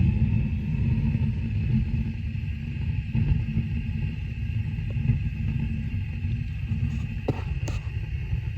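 Gas water heater's main burner firing after the control is turned to hot: a steady low rumble of burning gas, with a couple of light clicks near the end.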